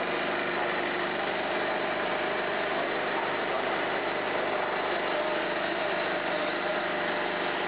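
Waste oil vacuum distillation machine running, a steady, unchanging mechanical hum with a few faint steady tones.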